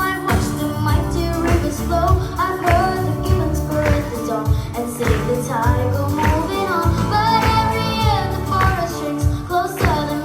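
A song sung by a group of children with instrumental backing and a steady beat.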